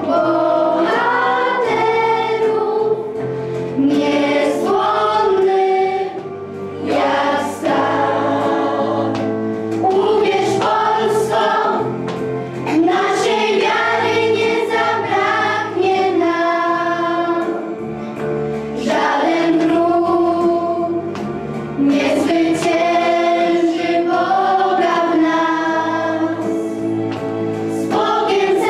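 Children's choir singing, mostly girls' voices, with a girl singing into a microphone, in continuous phrases with short breaths between them.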